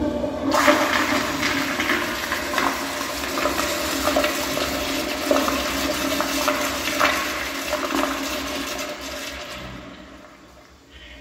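An American Standard Madera commercial toilet flushing through its chrome manual flushometer valve: a loud, steady rush of water that holds for about nine seconds and then fades out as the flush ends.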